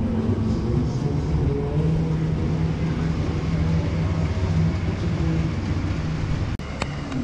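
Steady low mechanical rumble with a low hum that shifts in pitch, broken by a sudden drop and a few sharp clicks near the end.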